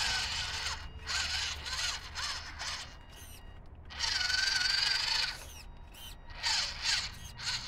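WPL C24 RC truck's small electric motor and gearbox whining in bursts as the throttle is worked, the pitch rising and falling, loudest about four seconds in.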